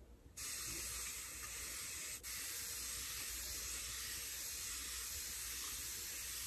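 Aerosol face-mist can spraying a steady hiss over a sheet mask, starting about half a second in, with a brief break around two seconds in.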